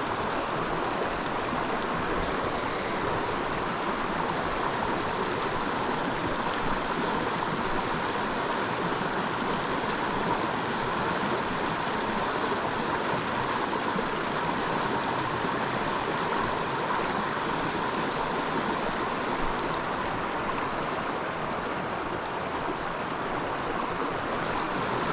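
A small mountain creek running, a steady, unbroken sound of moving water.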